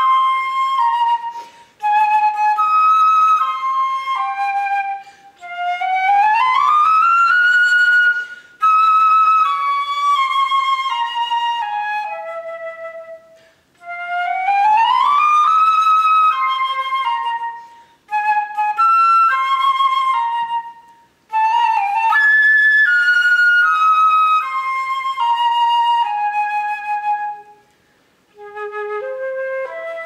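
Solo concert flute playing phrases of a piece built on South African bird calls: quick stepping notes broken by short breaths, with two long upward slides in pitch, one about a quarter of the way through and one about halfway.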